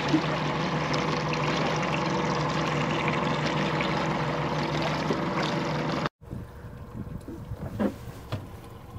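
A boat motor running steadily as the boat moves over the water, with the rush of water around the hull. It cuts off abruptly about six seconds in, leaving a much quieter stretch of faint water sounds.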